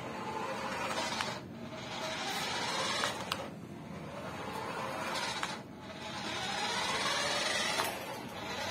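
Small electric motor and gears of a toy remote-control car whirring as it drives over a concrete floor, the sound swelling and dipping every couple of seconds as it goes and slows.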